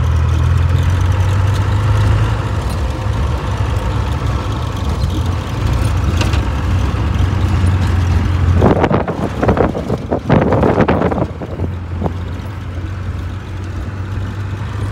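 Classic Land Rover driving off-road, heard from inside the cab: a steady low engine drone under road noise. From about nine to eleven seconds in there is a stretch of louder, rougher noise.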